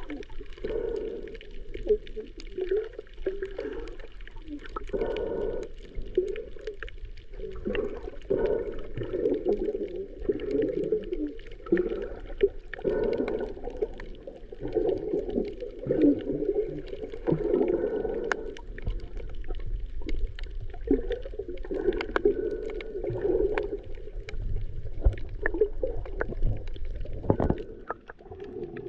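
Muffled underwater sound of water sloshing and bubbling around a submerged camera while snorkeling, swelling and fading irregularly, with scattered sharp clicks and a low rumble.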